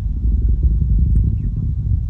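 Deep, uneven low rumble of a distant rocket launch, heard as the rocket climbs.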